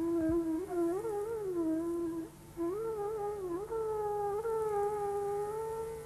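Soundtrack music: a single slow, wavering melodic line, a solo voice or wind instrument. It breaks off briefly a little over two seconds in and ends on a long held note.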